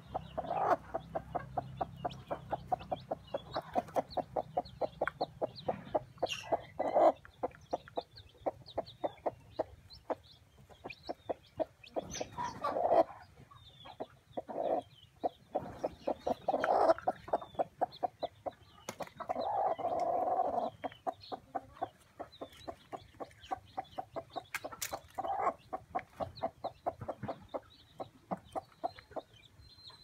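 Broody mother hen clucking in a quick, even run of short clucks, about four a second, broken by a few longer, louder calls. Newly hatched chicks peep faintly above it.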